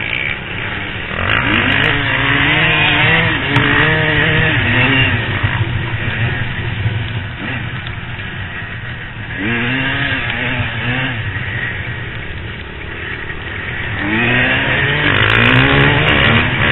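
Off-road motorcycle engines revving, the pitch climbing and dropping in three bouts of throttle: one about a second in, one near the middle, one near the end, with steadier running between.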